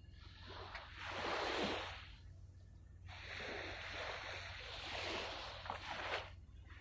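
Small waves washing up on the shore as two rising and falling swells of hiss, the second longer, over a faint steady low hum.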